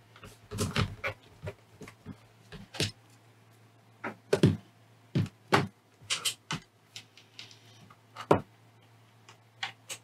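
Hands fitting a battery pack into the plastic battery bay of a FrSky Taranis X9D Plus radio transmitter: irregular clicks, taps and knocks of plastic and the battery plug and leads being handled.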